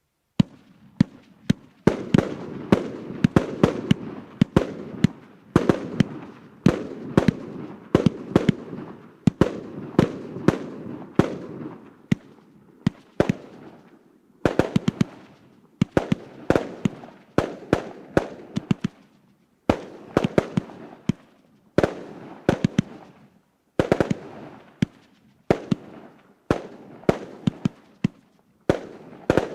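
A 120-shot consumer fireworks cake firing: a rapid run of sharp bangs in uneven clusters, each group trailing off in a fading rumble before the next.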